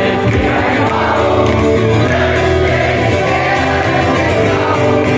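Live concert music: strummed acoustic guitar with a singing voice over a full amplified band sound, played continuously.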